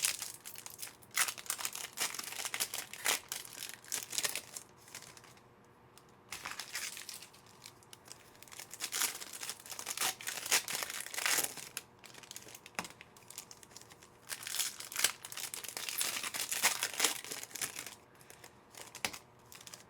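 Trading card pack wrappers and packaging crinkling and tearing as packs are ripped open by hand, in irregular bursts of crackling with short pauses between them.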